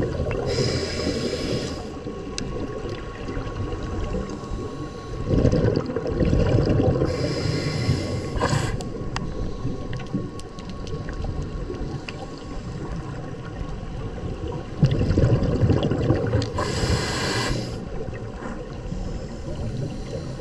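Water noise heard through an underwater camera: a steady low rumble of water moving around the housing, broken three times by a short burst of high hissing about eight seconds apart.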